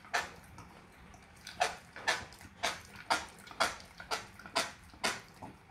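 Micropig grinding its teeth and smacking its drooling jaws, making short wet clicks. After a single click near the start and a short pause, the clicks come about twice a second.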